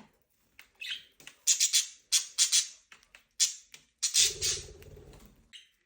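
Budgerigars giving a run of short, harsh, high-pitched squawks and chirps, about a dozen in quick succession. A longer, buzzier call comes about four seconds in.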